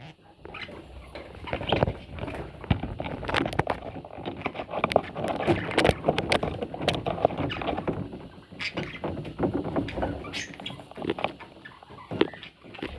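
Budgerigar chicks shuffling about, with irregular scratching, rustling and many small clicks.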